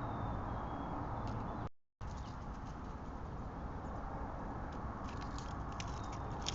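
Outdoor backyard ambience picked up by a trail camera's microphone: a steady background hiss with scattered small clicks and ticks and a faint high note near the start. The sound drops out completely for a moment about two seconds in, then the same ambience resumes.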